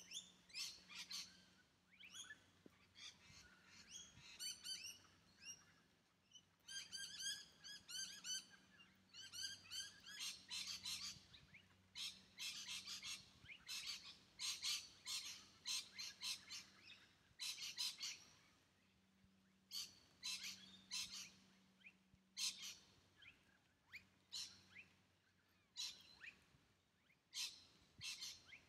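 Birds chirping: quick series of high notes repeated in bursts, with short pauses between them.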